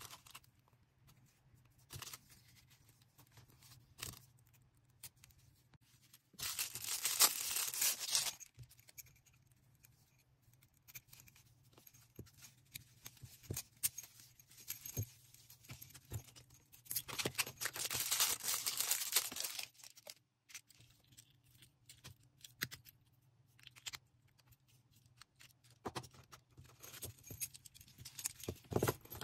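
Order packing by hand: packaging crinkling and clicking as it is handled, with two long tearing sounds about six seconds and seventeen seconds in.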